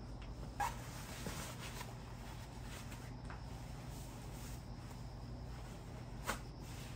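Quiet background ambience with a steady low hum, broken by two sharp clicks, one about half a second in and one near the end.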